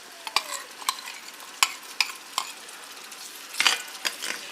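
Onion-and-spice masala frying in hot oil in a pan, a steady sizzle under a spoon that stirs and scrapes, with sharp clicks as it knocks the pan, thickest a little past halfway.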